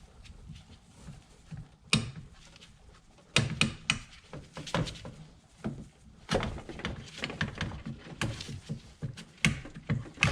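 Irregular clicks, knocks and plastic rattles from hands working on a BMW's plastic coolant expansion tank and its hose fittings.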